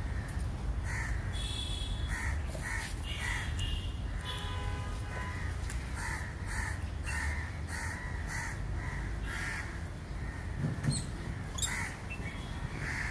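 Crows cawing over and over, about two short calls a second, with two sharp clicks near the end.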